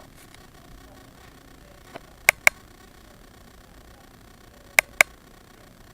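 Two double clicks, sharp and short, the clicks in each pair about a fifth of a second apart, the first pair about two seconds in and the second near the end.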